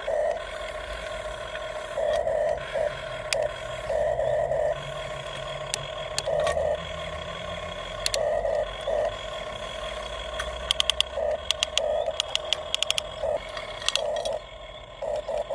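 Small electric gear motors of a Huina 1550 remote-control excavator whining in short stop-start bursts as its functions are worked, over a low hum. In the second half there are runs of rapid clicking.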